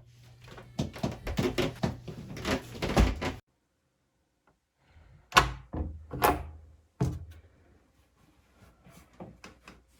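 A run of light knocks and clicks for about three seconds, then after a short pause three louder separate thuds, and a few faint clicks near the end: hands-on handling and knocking of hard parts, like a door or panel being worked.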